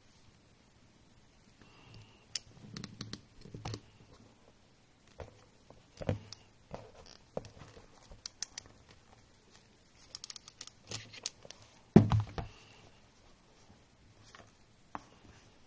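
Small parts and hand tools being handled on a workbench: scattered clicks, taps and light rustling, with one louder knock about twelve seconds in.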